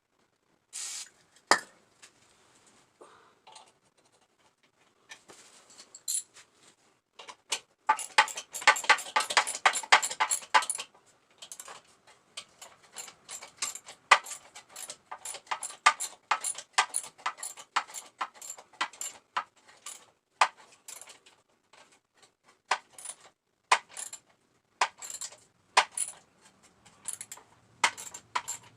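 Hand ratchet wrench clicking as a bolt is run in on a motorcycle: a fast run of ratchet clicks about eight seconds in, then steady separate clicks about two a second.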